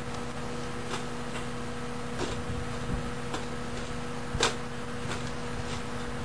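Self-lighting charcoal briquettes being set into a tin coffee-can grill: scattered light knocks and clicks a second or so apart, the loudest about four seconds in. A steady low hum runs underneath.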